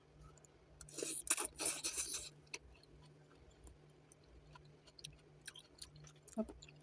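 Eating noises from a noodle meal: a hissing burst about a second in that lasts about a second and a half, then faint scattered clicks over a low steady hum.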